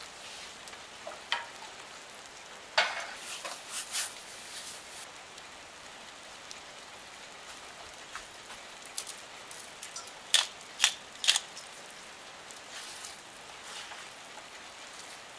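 Kitchen handling sounds: a dozen or so sharp clicks and clatters, bunched a few seconds in and again past the middle, over a steady faint hiss.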